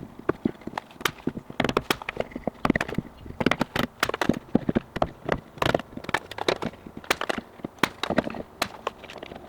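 An irregular run of sharp knocks and clicks, several a second, with no steady sound under them.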